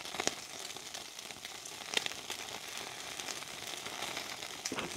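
Pork belly sizzling on a wire grill over hot charcoal as flames flare up under the meat, a steady hiss with a few sharp crackles, about a third of a second in, about two seconds in and near the end.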